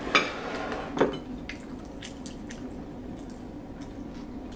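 Eating rice by hand from ceramic dishes: soft squishing of the food and light clicks of fingers and dishes, with a short scrape at the start and a sharp clink about a second in.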